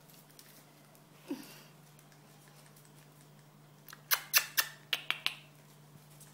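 Puppies scrabbling in a plastic laundry basket: a short falling whine about a second in, then a quick run of about seven sharp clicks and knocks of claws and paws on the plastic near the middle. A faint steady hum sits underneath.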